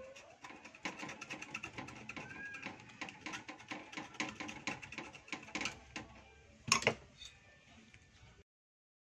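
A hand tool scraping at the inverter welder's circuit board in a rapid run of short scratching strokes, cutting through the coating to make a missing ground connection, with one sharp click a little before the end.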